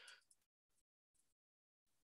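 Near silence, with only a faint brief noise at the very start.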